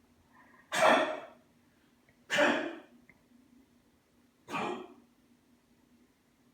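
A pet coughing three times in short, separate coughs, the last one quieter.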